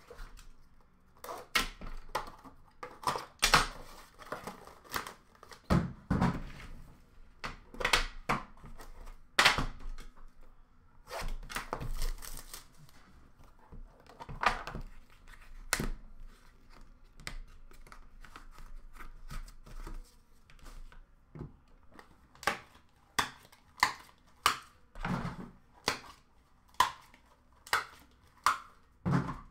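A sealed metal tin box of hockey cards being opened by hand: the tin and its lid clacking and knocking, wrapping tearing and crinkling, and cards being handled, in a string of short, sharp clicks and rustles.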